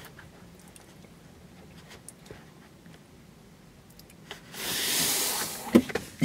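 Faint car-cabin room tone with a few soft clicks, then about four and a half seconds in a paper takeout bag rustles for about a second, followed by a couple of light knocks.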